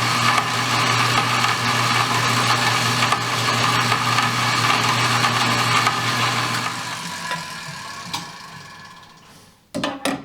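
An electric power tool cutting off a metal hook: its motor runs steadily with a hum and a high whine for about seven seconds, then spins down, followed by a couple of sharp knocks near the end.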